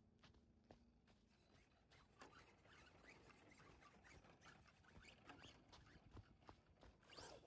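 Near silence, with faint scattered ticks and crackles.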